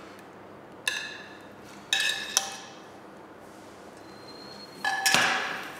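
Metal kitchenware clinking against a plate during plating: four sharp clinks spaced a second or more apart, each ringing briefly.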